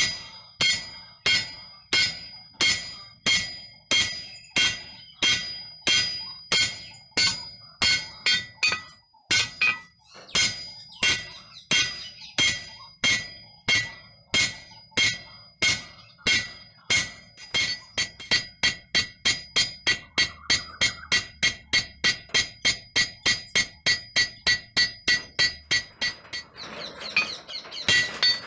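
Hand hammer forging red-hot leaf-spring steel on a railroad-rail anvil: ringing metal-on-metal blows, about two a second, quickening to three or four a second about halfway through. The blows go weaker for a moment near the end, then resume.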